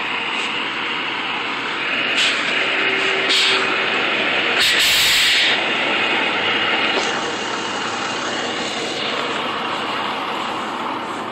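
Rolloff truck's diesel engine working hard under load with a high turbo whistle, its drive wheels spinning in soft pasture ground; a louder hiss breaks in about five seconds in.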